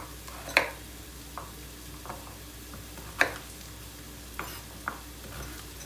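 Kitchen knife chopping celeriac into cubes on a wooden cutting board: a handful of separate knocks of the blade on the board, the loudest about half a second and three seconds in. Underneath runs the steady sizzle of onions frying in a pan.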